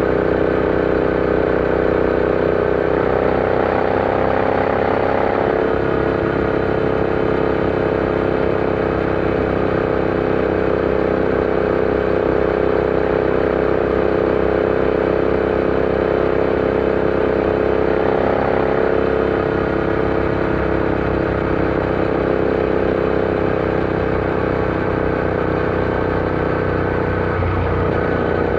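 Royal Enfield Interceptor 650's parallel-twin engine running steadily at riding speed. The engine note lifts slightly twice, a few seconds in and again about two-thirds through, then settles back.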